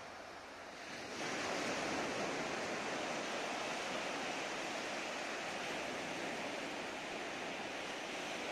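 Surf: small waves breaking and washing up a sandy beach. The steady hiss swells up about a second in and then holds.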